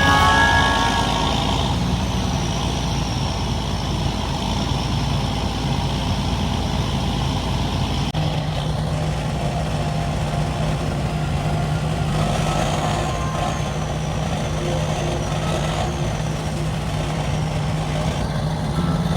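A large engine running steadily, from a truck or heavy machine, with a low, even hum that settles in about eight seconds in.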